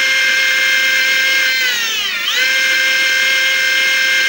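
15 kW brushless motor spinning at full speed on its controller in sensorless mode, Hall sensors disconnected: a loud, steady high electric whine, running without stuttering. About two seconds in the pitch dips sharply and climbs straight back as the speed falls off and recovers.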